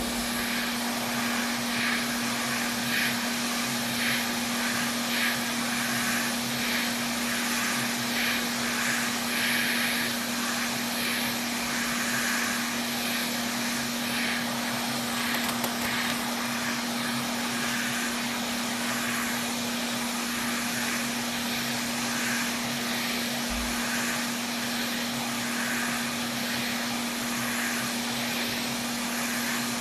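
Hot air rework station blowing steadily, a constant rush of air with a steady motor hum, heating the solder of a PS5's HDMI port to lift the old port off the board.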